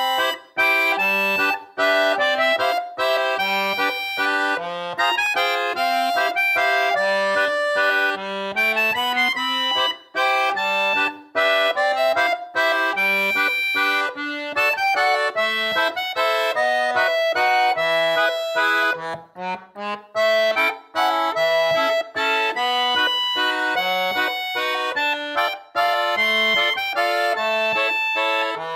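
Background instrumental music led by an accordion, a melody of held reedy notes over separate bass notes.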